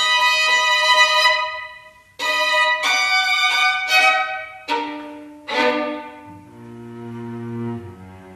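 Violin, viola and cello playing a contemporary string trio. Loud, high held violin notes break off about two seconds in and resume, followed by two sharp accented attacks that fade. Low held cello notes come in near the end.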